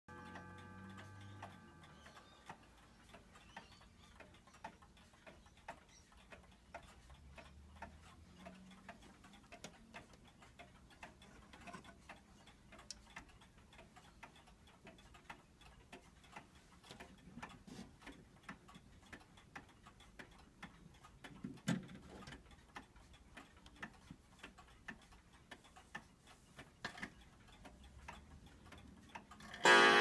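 Seth Thomas pendulum wall clock ticking steadily and faintly, with the ringing of a strike dying away at the start and a single knock about two-thirds of the way through. Near the end the hour strike begins loudly as the minute hand is pushed to twelve.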